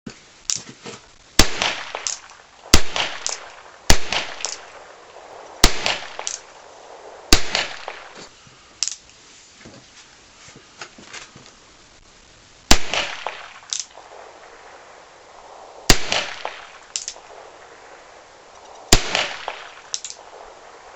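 Lee Arms Red Jacket #3 revolver firing .32 rimfire blackpowder reloads: eight sharp shots spaced one to five seconds apart, with a long pause in the middle. Each shot is followed within about a second by a fainter crack.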